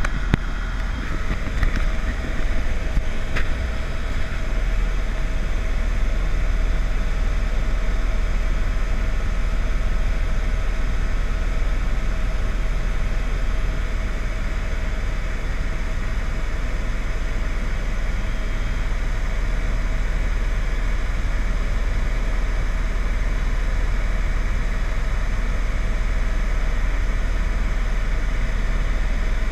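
Steady low rumble with an even hiss, the sound of a vehicle running, with a few light clicks in the first few seconds.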